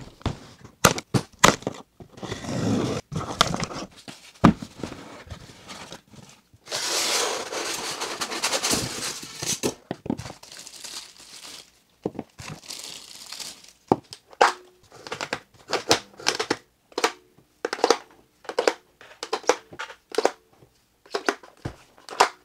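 Unboxing handling sounds: packing tape tearing off a cardboard box, plastic bags crinkling, and a run of sharp clicks and knocks as airsoft 40mm grenade shells and a plastic grenade launcher are handled and set down on a desk. A long stretch of crinkling rustle comes about a third of the way in.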